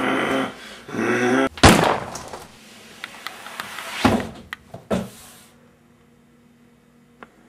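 A man's drawn-out, strained yell without words, then a loud heavy thud about a second and a half in. Two smaller thumps follow near four and five seconds, then it goes quiet.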